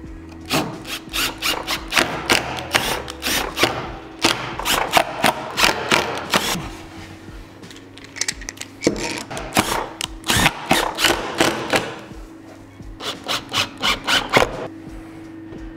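Cordless impact driver driving wood screws through ash battens into a spruce board, in about four rattling bursts with short pauses between screws.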